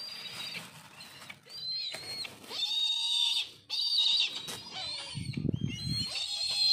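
A bird calling repeatedly in high, drawn-out cries, about five in a row, with a low rumbling noise about five seconds in.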